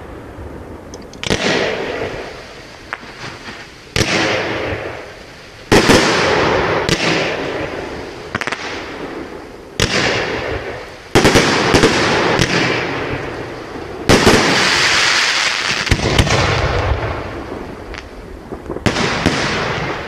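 Aerial firework shells bursting one after another: about ten sharp bangs, one every second or two, each trailing off over a second or more, with a longer gap before a last bang near the end.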